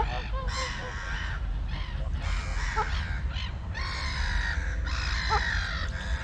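A bird giving a run of harsh, raspy calls several times in a row, over a steady low rumble.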